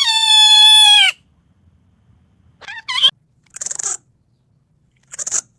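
A puppy's high-pitched whine that falls in pitch and stops about a second in, followed by two brief squeaks and then two short breathy puffs.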